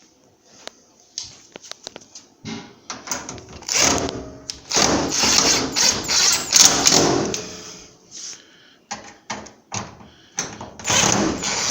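Clicks and knocks, then a few seconds of scraping and rattling, as the panels and wiring connectors of an LG electric clothes dryer are handled and fitted back during reassembly.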